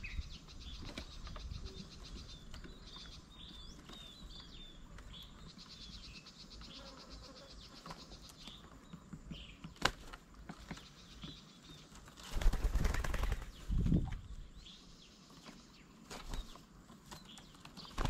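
Birds' wings flapping as they come and go at a bird table, loudest in a burst about twelve seconds in and again briefly near fourteen seconds, over small bird chirps and a faint high buzzing, with one sharp click about ten seconds in.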